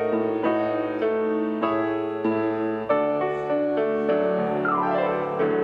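Piano music: slow, gentle chords struck steadily, about one every half second.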